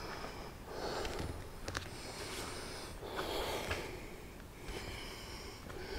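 A person breathing heavily, several loud breaths in and out, with a single sharp click about a second and a half in.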